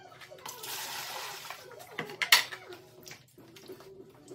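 Wet scalded chicken being plucked by hand over a tub of birds: a rush of wet, water-like noise for about a second, then a sharp knock about two seconds in, with small wet clicks and rustles around it.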